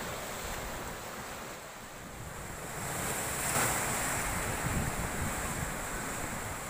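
Large sea waves breaking and washing over rocks, a continuous wash of surf that swells to its loudest as a wave crashes a little past halfway. Wind buffets the microphone with a low rumble in the second half.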